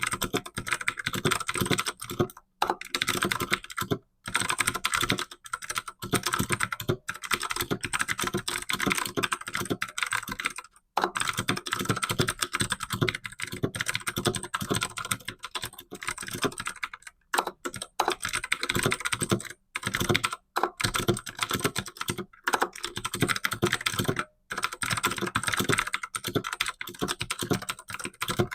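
Fast typing on a computer keyboard, at around 75 to 90 words per minute: a dense run of key clicks broken by short pauses every few seconds.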